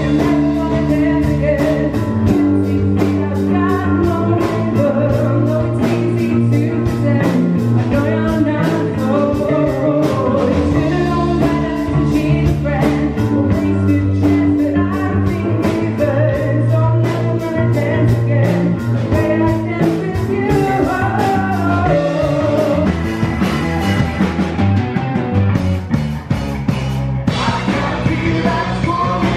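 Live rock band playing: a woman singing over electric guitar, bass and drums with a steady beat.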